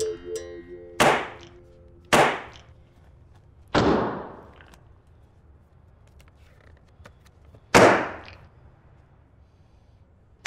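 Four sharp bangs at uneven intervals, each ringing out and dying away over about a second. The last, about eight seconds in, is the loudest.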